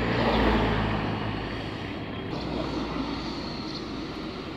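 A motor vehicle passing close by, its engine loudest about half a second in and then fading as it moves off, over steady street traffic noise.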